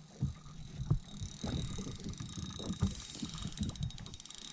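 Spinning fishing reel whirring with a fast, fine clicking while it is worked during a fish fight, with scattered low knocks of the rod and hands against the boat.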